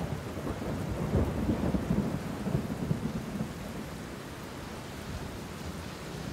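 Sea surf washing over a shingle beach: a crackling hiss of pebbles over a low rumble, loudest in the first few seconds and then easing.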